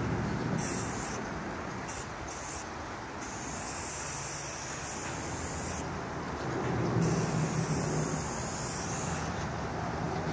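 Aerosol spray-paint can hissing as black outline lines are sprayed: several short bursts in the first few seconds, then one long spray of about three seconds starting about six seconds in. A steady low traffic rumble lies underneath.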